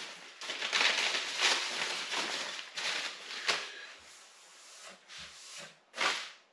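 Crinkly rustling of an ultralight tent's fabric and its stuff sack being handled and pulled apart, in uneven bursts, with a sharp swish about six seconds in.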